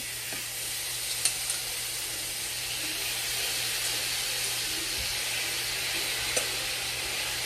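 Seasoned steak strips sizzling as they are dropped into a hot frying pan, a steady hiss with a few light clicks.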